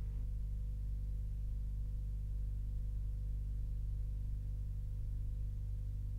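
Steady low electrical hum on an old film soundtrack, unchanging throughout, with no music or speech.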